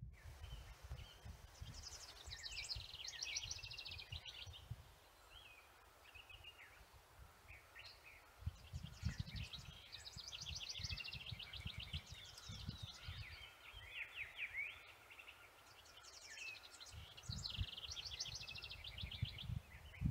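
A songbird singing: bouts of rapid trilled notes, each a couple of seconds long, repeated several times. Irregular low rumbling gusts run underneath.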